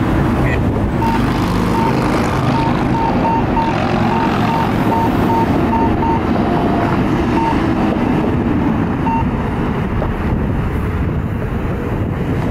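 A fire truck's diesel engine running loud and steady, with a back-up alarm beeping repeatedly through most of the first three quarters, dropping out for stretches before stopping.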